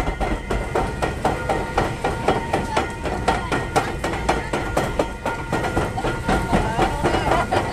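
River-rapids ride's raft lift conveyor clattering as it hauls a round raft up the incline. The knocks come in a quick, even rhythm of about four to five a second.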